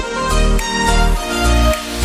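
Electronic background music with held chords and a deep bass. The regular kick drum drops out for a short break.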